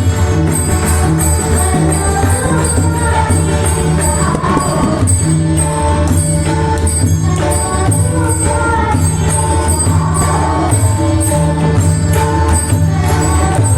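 Varkari bhajan music: pakhawaj and tabla drumming with small hand cymbals keeping a steady jingling beat, over sustained low tones and a sung melody.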